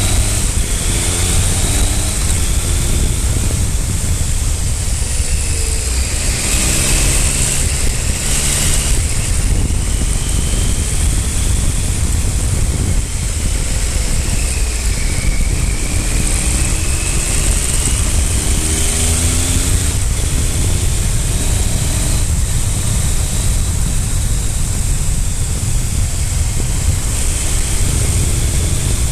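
Triumph Speed Triple 955i's three-cylinder engine under way, its pitch rising several times as it pulls up through the revs, over heavy wind rush on the microphone.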